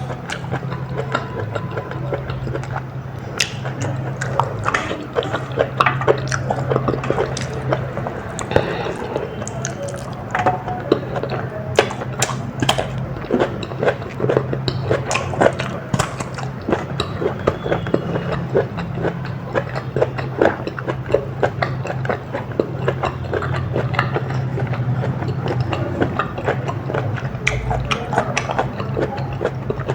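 Close-miked eating sounds of a person biting and chewing food: a dense, irregular run of short crisp clicks and wet mouth sounds, over a steady low hum.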